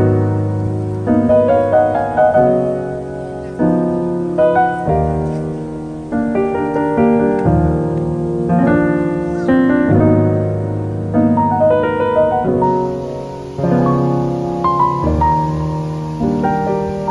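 Background piano music: notes and chords struck one after another, each fading as it rings.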